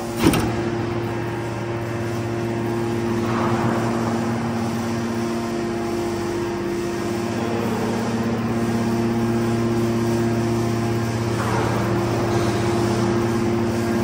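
Hydraulic power unit of a Y81-250R scrap metal baler running with a steady hum while the main cylinder advances under pressure. A single sharp click sounds just after the start.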